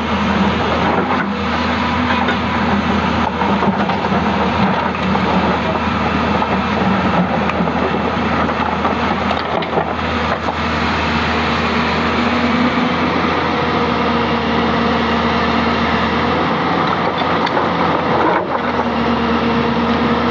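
Hyundai 220-9S hydraulic excavator's diesel engine running steadily under load while it digs and lifts a bucket of rocks, with a few sharp knocks of stone against stone and the steel bucket.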